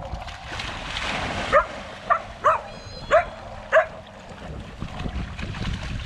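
A dog barking in short, sharp yips, about five in a row roughly half a second apart, starting about a second and a half in.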